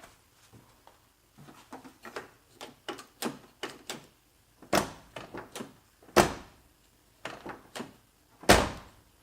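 Driver-door handle and latch of a Toyota AE86 being worked after the new handle and linkage are fitted: a run of light clicks, then three sharp latch clunks about a second and a half apart.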